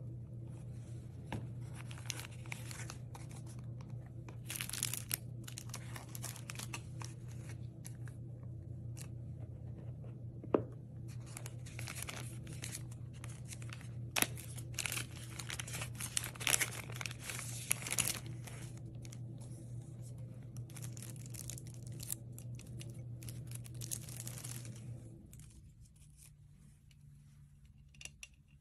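Thin plastic wrapping crinkling and rustling in the hands as it is peeled off a pair of glasses, with many sharp crackles. A steady low hum sits underneath, and both stop about 25 seconds in.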